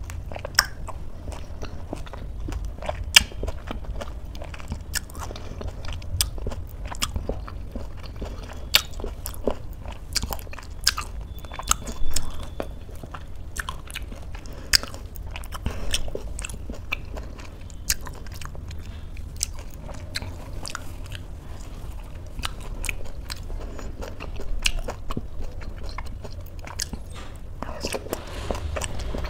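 Close-miked chewing of a mouthful of oatmeal and fruit, with many quick sharp mouth clicks and smacks at an irregular pace.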